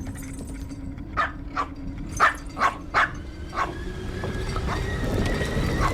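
A dog barking six times in quick succession, over a steady low hum.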